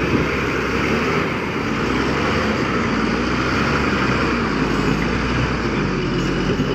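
Heavy truck engine running steadily under load, with a broad rumble of engine and road noise.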